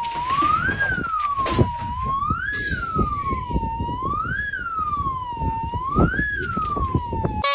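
A wailing siren, its pitch rising and falling smoothly about every two seconds, over irregular low knocks and thumps.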